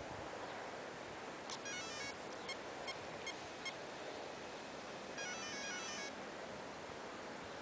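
Power-up tones of a Castle Mamba Monster Max brushless ESC, played through the Neu brushless motor of a stationary RC buggy. A quick run of stepped beeps, then four short single beeps, then another run of stepped beeps as the ESC arms.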